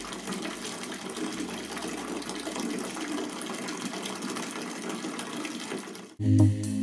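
A bathtub filling from the tap, water gushing steadily into a foamy bubble bath. It breaks off suddenly near the end.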